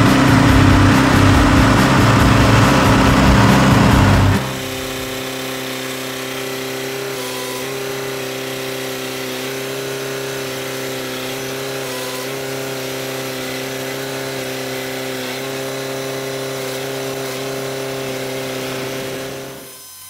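Heavy machinery engine running steadily, loud for about four seconds, then cut abruptly to a quieter, steady engine hum that fades out near the end.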